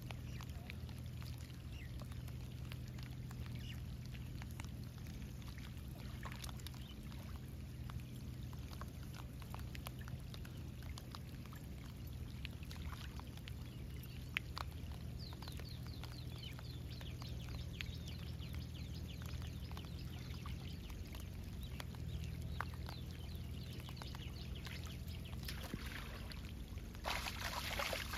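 Shallow river water at the bank lapping and trickling around a person wading in it, over a steady low hum, with scattered small ticks. Near the end comes a loud splash as water is thrashed by hand.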